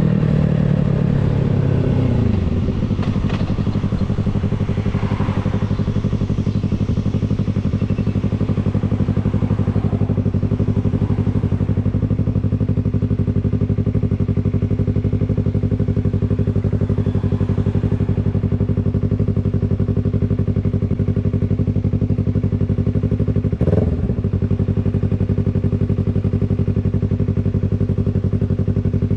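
Yamaha MT-03's 321 cc parallel-twin engine through its exhaust: the revs fall over the first couple of seconds, then the engine idles steadily at one even pitch, with a brief bump in the sound late on.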